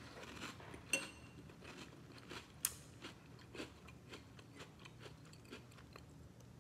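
A person chewing a mouthful of Cap'n Crunch Cinnamon Bolts cereal: faint, irregular crunches, with a brief ringing click about a second in and a sharper crunch near three seconds in.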